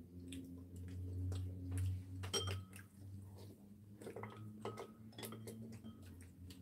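Metal chopsticks and a spoon clicking and clinking against ceramic bowls and plates while eating, light scattered clicks with a few brief ringing clinks about two seconds in and again around four to five seconds in. A low steady hum runs underneath.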